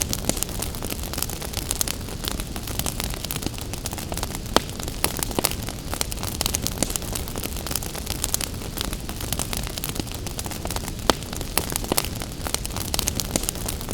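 Wood fire crackling, with many small sharp pops and two louder pops about four and a half and eleven seconds in, over a steady hiss of rain.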